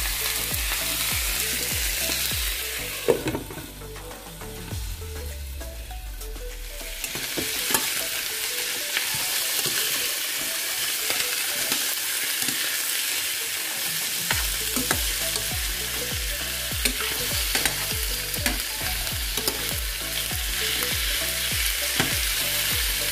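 Parboiled chicken drumsticks sizzling in a frying pan with sautéed garlic, onion and ginger, a metal spoon clicking and scraping against the pan as they are turned. About three seconds in the sizzle dies down for a few seconds, then comes back.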